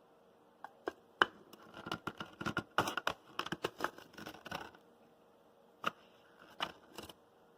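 Irregular light clicks, taps and scraping from handling an electric blade coffee grinder after it stops, clustered in the first half with a few isolated clicks near the end.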